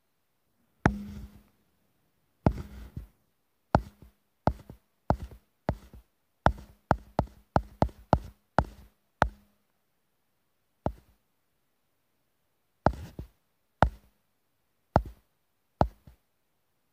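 A ball bouncing down hard steps: about twenty sharp knocks with short decays, some with a brief low hum. They come irregularly, close together around the middle and spaced out toward the end, with silence between.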